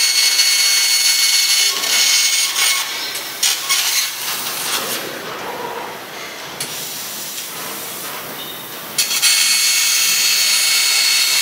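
Laser pipe cutting machine cutting a steel channel section: a loud steady hiss from the cutting nozzle and spark spray, with a thin high whine running through it. The hiss drops away for about four seconds in the middle while the cut pauses, then starts again abruptly about nine seconds in.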